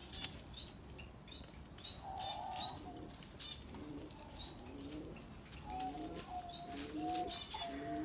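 Fairly quiet bird calls: doves or pigeons cooing over and over, with small birds chirping high and a few short rustles.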